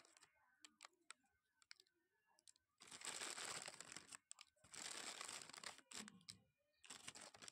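Ridged potato chips being handled, crinkling and crunching in three bursts, with scattered light clicks in between as chips are laid on rolled-out dough.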